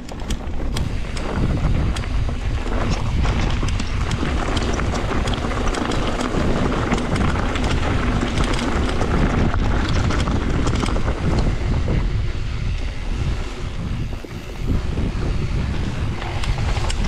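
Mountain bike ridden down a dirt trail: wind buffeting the microphone, tyres rolling over the ground, and the bike clattering and knocking over bumps.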